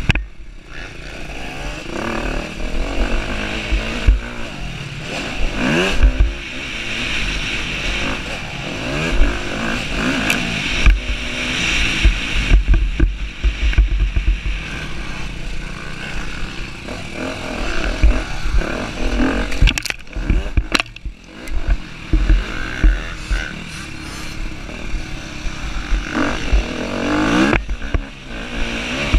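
Husqvarna TC250R motocross bike engine revving hard and easing off again and again through the gears at racing speed, heard from on the bike, with wind rumbling on the microphone.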